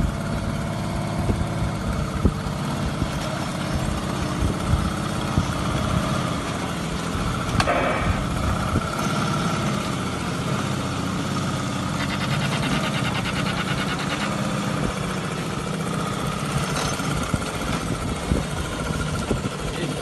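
Homemade V12 engine of a large scale-model Tiger tank, loosely patterned on the Maybach V12, idling steadily.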